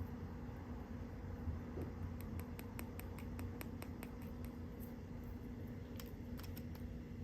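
Small plastic toy pieces handled, clicking and tapping lightly: a run of quick clicks starting about two seconds in, about four a second, then a few more near the end, over a steady low hum.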